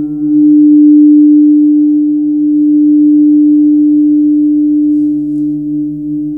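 Large Tibetan gong played with a soft felt-headed mallet: a sustained humming drone, one strong steady tone over a lower tone that throbs in a regular beat. It swells about a second in and slowly eases off.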